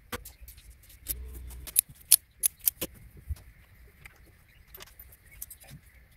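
Sharp clicks and clinks of tools and parts being handled during motorcycle work, with four loud ones in quick succession about two seconds in and a dull thud just after, over a faint steady high whine.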